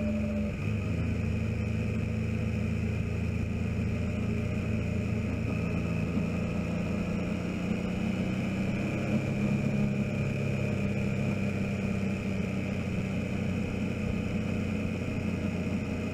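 Motorcycle engine running under way, heard from a camera mounted on the bike, with steady road and wind noise. The engine note rises through the middle as the bike speeds up, then eases back as it slows for the next bend.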